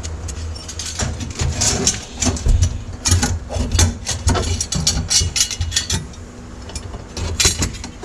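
Metal clinks, clanks and rattles of a floor shifter assembly being handled and pushed up into a hole cut in a car's floor. The clatter comes in irregular bursts over a low steady hum.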